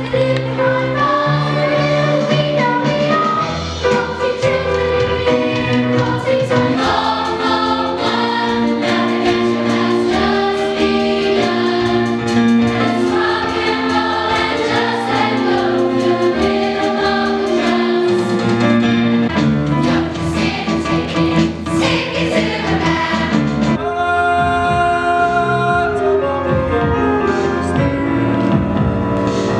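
A large chorus singing a stage musical number in unison and harmony, over band backing with a steady bass line. About four-fifths of the way in, the music moves into long held chords.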